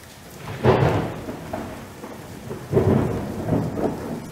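Thunderstorm sound effect: a steady hiss of rain with rolls of thunder. One comes in less than a second in and another about two seconds later, each rumbling and fading away over a second or two.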